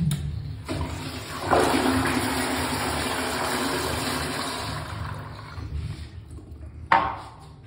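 American Standard Madera toilet with a flushometer valve flushing: a sudden rush of water about a second and a half in, tapering off over several seconds. Near the end, a sharp knock as the toilet seat drops onto the bowl.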